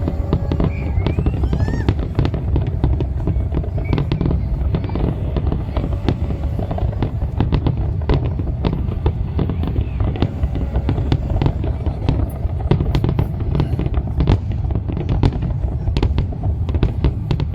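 Fireworks display: a rapid, continuous run of bangs and crackles over a steady deep rumble, with a few rising whistles near the start.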